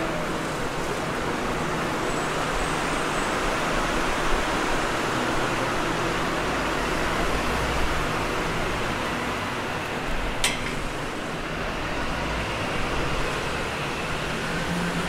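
Steady city street noise, mostly the hum and hiss of passing traffic, with one sharp click about ten seconds in.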